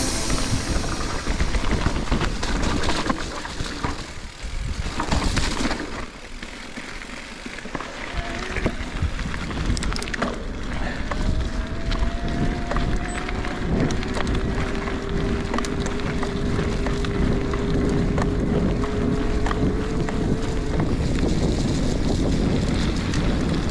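Specialized Levo e-bike ridden over a rough forest trail: wind buffeting the microphone and the rattle and knock of the bike over the ground. For about ten seconds in the middle there is a steady whine that rises slightly, likely the e-bike's drive motor under load.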